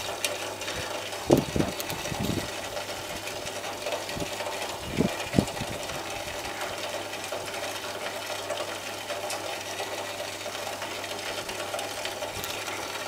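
Steady electrical drone of a microwave oven transformer driving a fluorescent tube, with a vacuum cleaner motor wired in series as its ballast, running slowly under the load. A few dull thumps come in the first few seconds.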